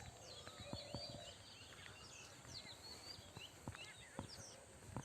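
Several birds singing, with many short quick chirps and whistled notes overlapping, faint against a steady outdoor hiss, and a few soft knocks.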